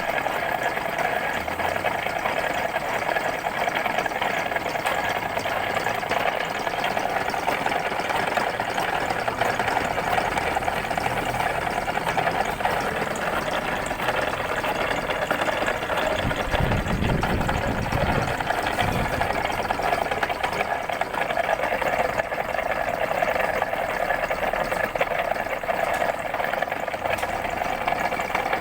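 Machine tool running steadily with an even mechanical whir, with a low rumble for about three seconds past the middle.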